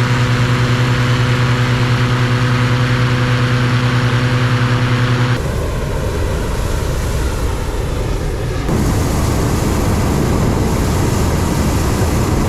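Hot air balloon inflation fan, engine-driven, running with a steady low hum over a loud rush of air. About five seconds in the hum drops away, leaving a steady rushing noise that shifts again near nine seconds.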